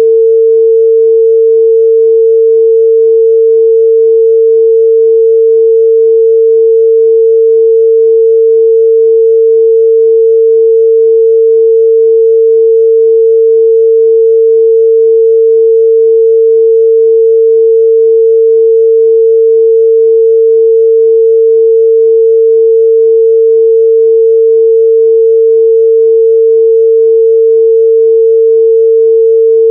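A steady, loud 451 Hz sine-wave test tone, one pure pitch held without change.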